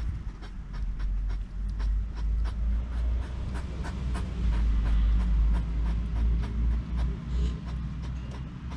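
Hedgehogs crunching sunflower seeds: many short, irregular clicks and cracks, several a second, with snuffling breaths, over a loud low rumble.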